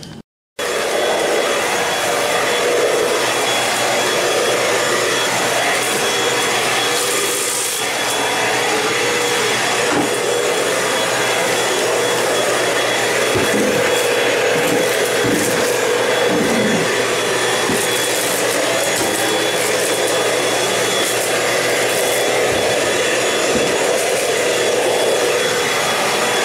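Stick vacuum cleaner running steadily as it is pushed over a tile floor, its motor holding a constant whine.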